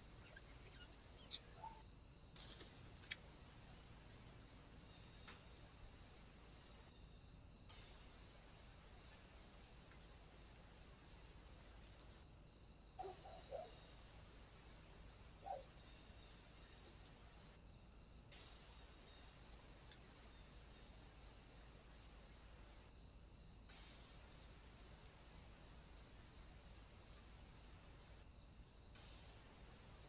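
Near silence: faint steady chirring of insects high up, with a regular soft pulse a little more than once a second, broken by short gaps every five seconds or so. A few brief faint sounds about halfway through.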